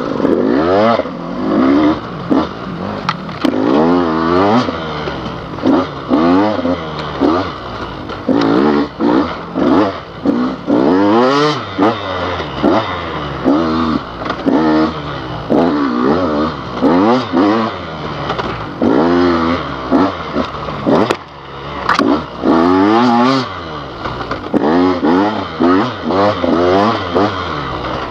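Dirt bike engine ridden hard, revving up and falling back again and again as the throttle is worked, every second or two, with a few sharp knocks of the bike over the ground.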